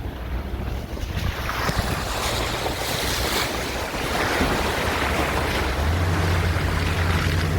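Vehicle engine running while crossing a river, with water rushing and splashing around it and some wind on the microphone. About six seconds in the engine settles into a strong steady low drone as it pulls up out of the river.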